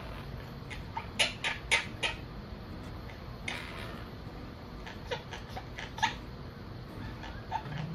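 Pet parrots making short sharp clicks and chirps: a quick run of them in the first two seconds, then a brief hissing noise a little past three seconds, and single clicks near five and six seconds.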